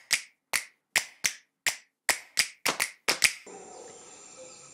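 Sharp snapping clicks in an uneven rhythm, quickening toward the end, then cutting off about three and a half seconds in. A steady high insect drone of forest ambience takes over.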